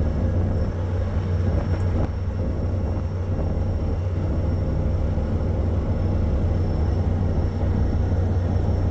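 Steady low drone of a ship's engine running, with a constant hum.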